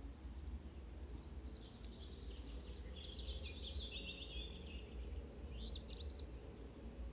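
Small birds chirping in the background: a few quick runs of rising chirps and a short high trill near the end, over a steady low hum.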